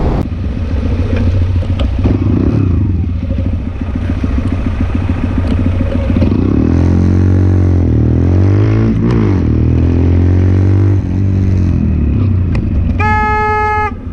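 Motorcycle engine running as the bike rides along, its pitch rising and falling through the middle as the rider opens and closes the throttle. Near the end a vehicle horn sounds once, for just under a second.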